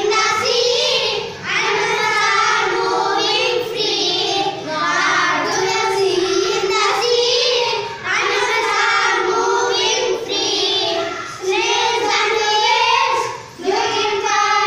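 A group of young children singing an action rhyme together in unison, in phrases of a few seconds with short breaks between lines.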